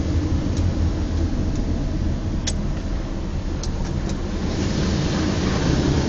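Steady engine and road rumble heard inside a moving car's cabin, with a few light clicks, the sharpest about two and a half seconds in. A hiss swells from about four and a half seconds in.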